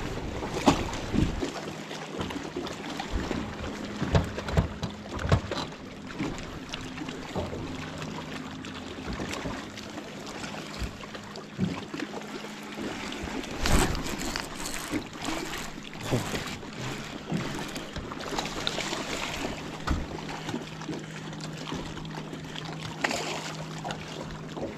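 A boat's electric trolling motor humming at a steady low pitch, fading out and coming back now and then. There are scattered knocks and clicks, with light wind and water noise underneath.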